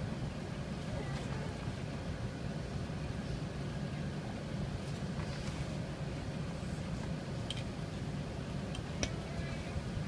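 Steady low hum inside an Airbus A380's passenger cabin as the aircraft taxis, with a few light clicks in the last few seconds.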